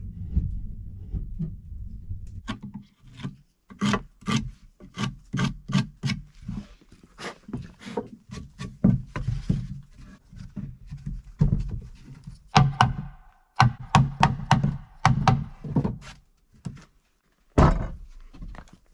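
Sawn wooden beams thunking and knocking against each other and the plank floor as they are handled and fitted together, in an irregular run of sharp knocks. A low rubbing noise comes first, stopping after about two seconds.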